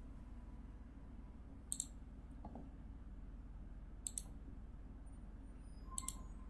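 Computer mouse double-clicked three times, each a quick pair of sharp clicks, about two seconds apart.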